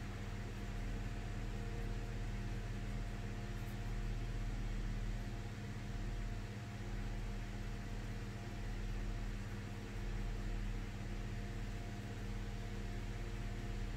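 Steady machine hum with an even hiss over it, unchanging throughout.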